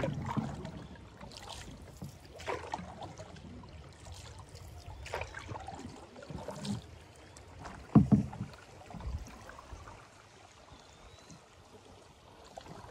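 Canoe paddling: a double-bladed paddle dipping and splashing in the river water every couple of seconds. A single loud thump comes about eight seconds in.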